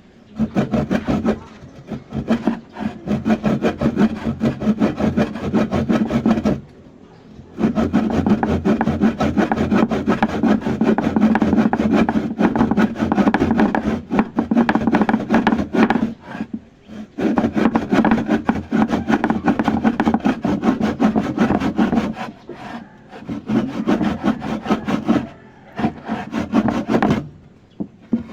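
Hand saw cutting with rapid back-and-forth rasping strokes, in long runs broken by short pauses about a quarter, halfway and near the end.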